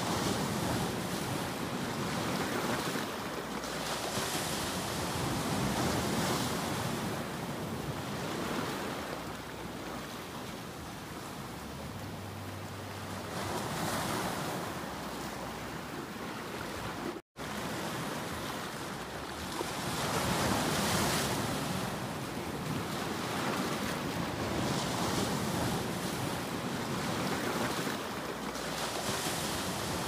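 Sea waves washing and breaking over shoreline rocks: a continuous surf that swells and ebbs every few seconds. The sound cuts out for an instant a little past halfway.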